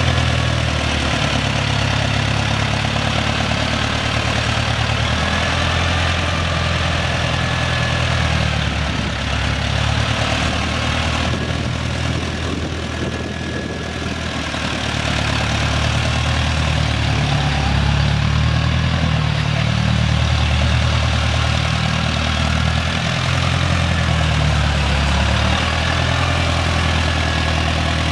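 Engine of a 1970 Massey-Ferguson 165 tractor running steadily as the tractor drives slowly, a continuous low drone that eases slightly in the middle.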